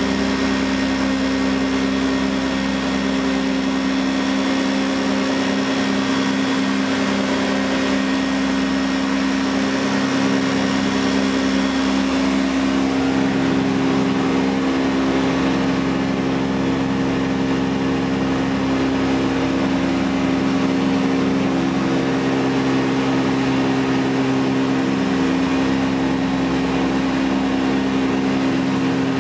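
The DC-3 Dakota's two radial piston engines running at takeoff and climb power, heard inside the cockpit as a loud, steady, deep drone. Their note shifts slightly about twelve seconds in.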